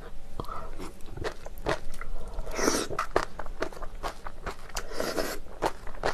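A person eating spicy cold bibim-guksu noodles close to the microphone: wet chewing with many small mouth clicks, and two longer slurps as noodles are drawn in, one a little before the middle and one near the end.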